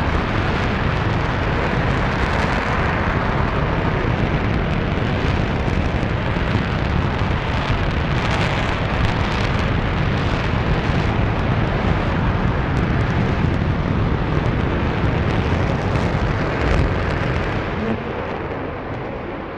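RS-25 liquid-hydrogen/liquid-oxygen rocket engine firing on a test stand: a loud, steady, deep rushing roar that eases slightly near the end.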